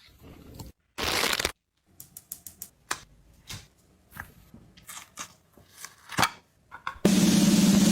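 A short loud rustle, then scattered small cracks and crunches, like crinkling or breaking something brittle by hand. Loud music with drums starts near the end.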